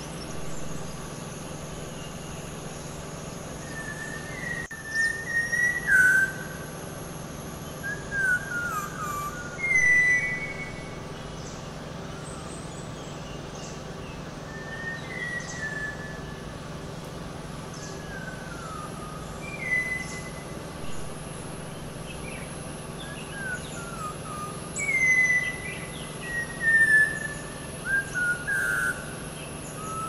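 Malabar whistling thrush singing: loose phrases of clear whistles with a human quality, many sliding down in pitch, coming every few seconds with pauses between.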